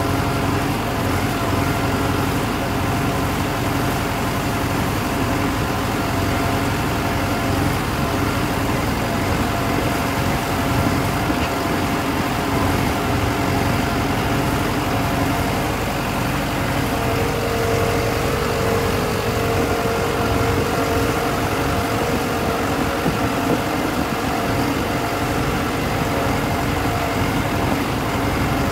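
High-clearance farm tractor's diesel engine running steadily. A brighter tone joins it for a few seconds past the middle.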